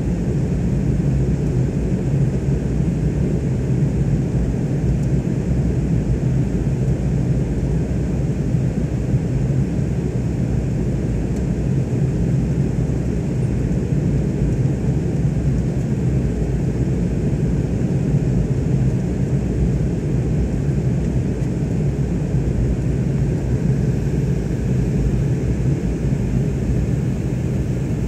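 Steady cabin noise of a jet airliner in flight: a constant low rumble of engines and airflow heard from inside the cabin.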